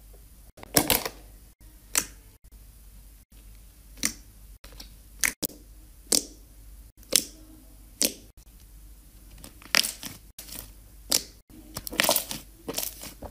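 Glossy slime being squeezed and pressed by hand: about a dozen short crackling squishes, roughly one a second.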